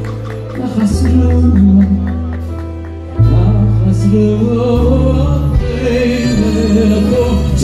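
Live music: a man singing a slow melody into a microphone over an orchestra's long held low chords.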